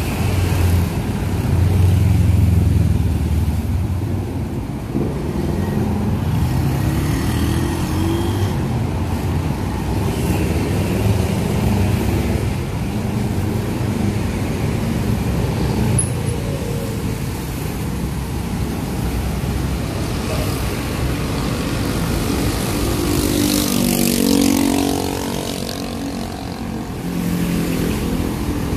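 Steady road traffic: car, bus and motorbike engines rumbling past close by. About two-thirds of the way through, one vehicle passes louder, its engine pitch sliding as it goes by.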